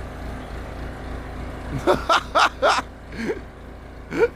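Backhoe engine running steadily with a low rumble, with a few short human cries about two seconds in.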